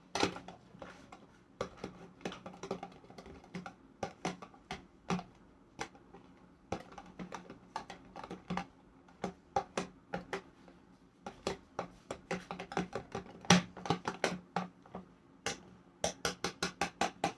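A spoon clicking and scraping against a bowl while slime mixture is stirred, with irregular light clicks that come in a quicker run near the end.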